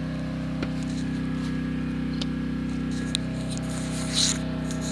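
A steady low mechanical hum, with a few light clicks and a brief rustle about four seconds in from fingers handling the phone.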